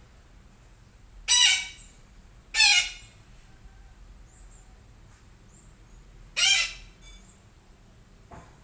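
Sumatran betet parakeet giving three loud, harsh calls of about half a second each. The first two come about a second apart and the third a few seconds later, with a faint call near the end.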